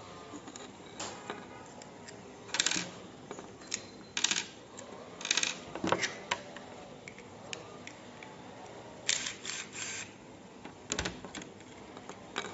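Plastic parts of a small security camera clicking and rattling as it is handled and taken apart by hand: irregular sharp clicks, some in quick clusters of three or four.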